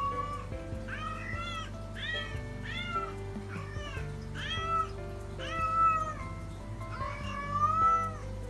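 Scottish Fold cat meowing repeatedly, about once a second, while carrying a stuffed toy in its mouth and crying for its owners. The last two calls are longer and louder. Background music plays underneath.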